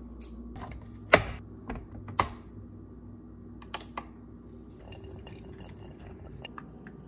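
Sharp plastic clicks and knocks as a Hamilton Beach two-way coffee maker is loaded and closed and its buttons pressed. The loudest click is about a second in and another comes about a second later, followed by a run of light ticks.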